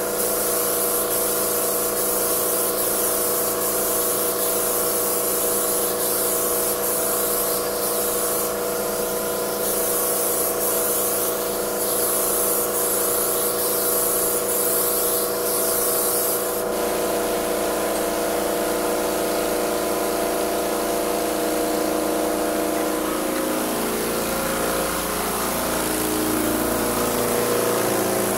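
Titan AirCoat air-assisted airless paint sprayer running with a steady pump hum, while the spray gun hisses in long passes with short breaks as the trigger is pulled and released. The hiss stops about two-thirds of the way through, and the sprayer keeps running.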